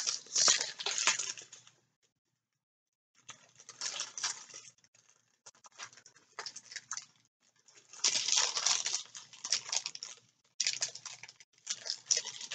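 Small plastic bags of resin diamond-painting drills being handled: crinkling plastic and the drills shifting and rattling inside, in several bursts with silent gaps between.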